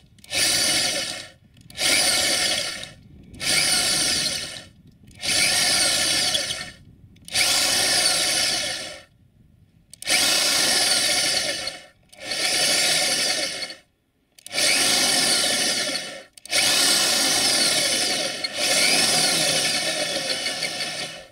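Electric drill with a 4.8 mm twist bit boring into the sheet-metal body of a UAZ Patriot, in about ten bursts of one to three seconds with short pauses between them, the later bursts longer. It is enlarging a pilot hole so a 6 mm thread can be tapped for the wiper mount.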